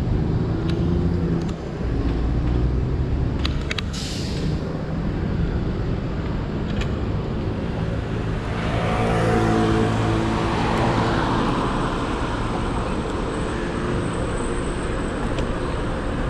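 Ride noise from a Xiaomi Mi 1S electric scooter moving through city traffic: a steady low rumble of road and wind, with a few sharp clicks and a brief hiss about four seconds in. A motor vehicle engine passes and swells from about eight to eleven seconds in.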